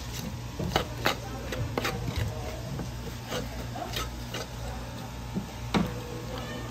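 Fish knife scraping along a wooden cutting board as it separates the skin from a mullet fillet, with several sharp knocks of the blade on the board among the scraping.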